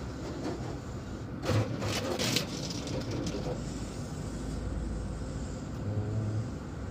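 Drive-thru car wash water spray hitting the windshield and body, heard from inside the car's cabin over a steady low rumble. The spray comes in louder gusts about one and a half to two and a half seconds in. This is the first stage, plain water before the soap.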